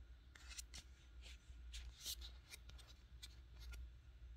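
Near silence: faint scattered rustles and light clicks of the phone being handled and moved while it films, over a low steady hum.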